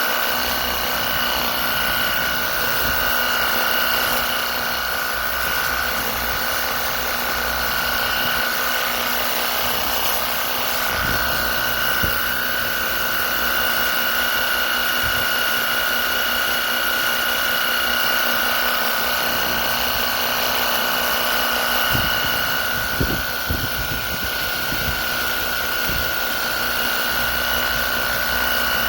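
WORX HydroShot cordless pressure washer running: the battery-powered pump motor gives a steady high whine over a hiss, with a few brief knocks a little after twenty seconds in.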